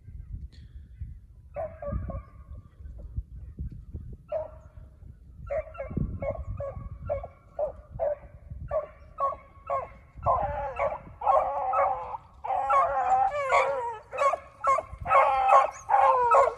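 Beagles baying on a rabbit's trail: repeated short bawls and chops, a few at first, then coming thick and fast and overlapping, louder in the second half as the running pack closes in.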